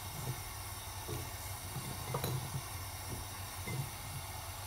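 Water at a rolling boil in a stainless steel pan on a gas hob at full flame: a steady hiss with irregular low bubbling, and one louder bubble about two seconds in.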